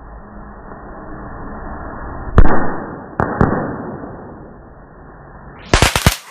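Fireworks slowed down to a deep, muffled rumble: a loud boom about two and a half seconds in with a long fading tail, then two more booms close together about a second later. Near the end comes a quick run of sharp, crisp cracks.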